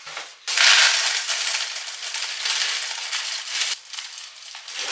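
Kellogg's Crunchy Nut cereal being poured from its box into a plastic food container: a steady rush of clusters falling that starts about half a second in, is loudest in the first second and thins out over the last second.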